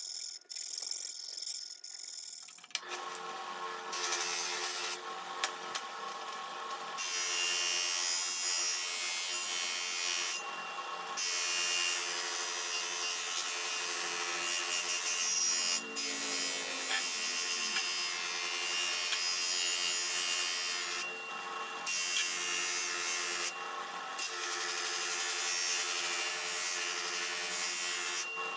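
Bench-mounted electric motor spinning a grinding wheel, with a steel saw-blade knife pressed against it: a steady grinding rasp over the motor's hum. It starts about two and a half seconds in and breaks off briefly a few times as the blade is lifted away.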